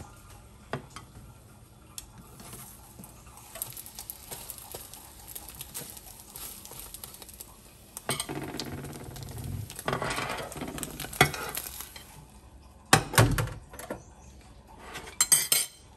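An omelette frying faintly in a nonstick pan. A spatula then scrapes the pan as the omelette is folded and slid out, followed by sharp clatters of a plate and utensils near the end.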